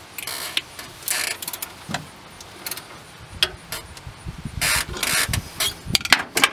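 Socket ratchet clicking in several short runs as it turns the nuts on a water pump pulley's studs, with a few single sharp metal clicks between.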